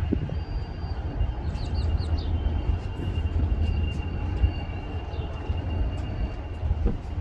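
Low steady rumble of trains moving in a railroad switchyard, with a thin steady high-pitched tone over it and a few short bird chirps about one and a half to two seconds in.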